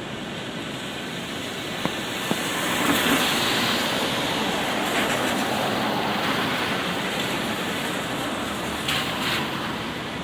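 Light rain falling on an umbrella over wet city streets. A vehicle's tyres hiss past on the wet road, swelling about three seconds in and slowly fading. There are two sharp clicks near two seconds in.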